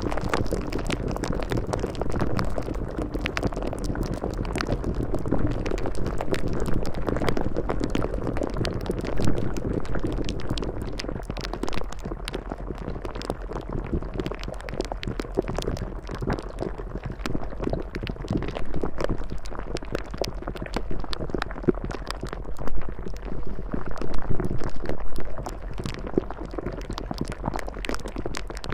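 Continuous bubbling, churning water sound full of small crackles and pops, over a low steady hum.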